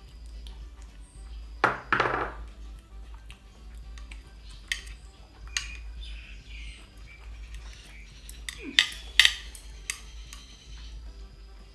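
Eating utensils clinking against a dish, a few scattered sharp clinks, the loudest about two seconds in and a pair about nine seconds in.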